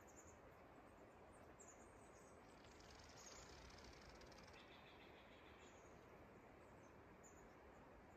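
Near silence: quiet forest ambience with faint, high-pitched chirps scattered throughout and a brief faint buzz about halfway through.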